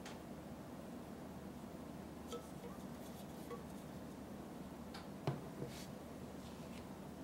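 An emptied drink can set down on a table with a single light knock about five seconds in and a softer tap just after, over faint room hiss with a few small ticks from handling the can.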